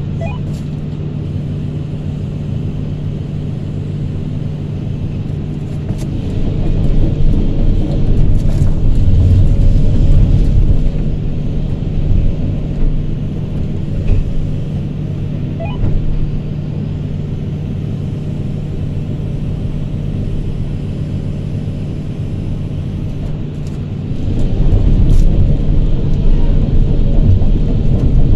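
Kobelco hydraulic excavator's diesel engine running with a steady low hum, heard from inside the cab. It gets louder for a few seconds about a quarter of the way in and again near the end.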